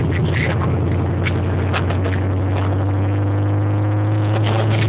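A Corvette V8 tuned to over 650 hp at the rear wheels, heard from inside the cabin through a phone microphone. It holds a steady low drone while cruising, with engine speed holding even.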